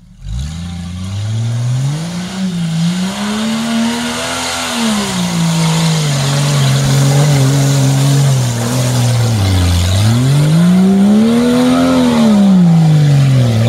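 Jeep Cherokee's engine revving hard and easing off as it drives off-road through mud, the pitch climbing and falling several times, with high-rev peaks about four seconds in and again near the end.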